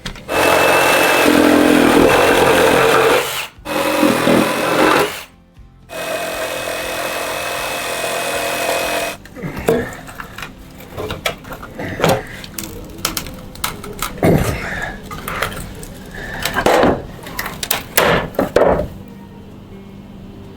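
Power drill running in three long bursts, driving screws into wooden stair steps, followed by a string of irregular knocks and thuds of wood being handled and struck.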